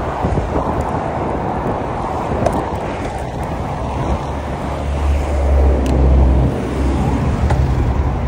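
Wind rushing over the microphone of a camera on a moving road bike, with low buffeting that grows heavier about five seconds in.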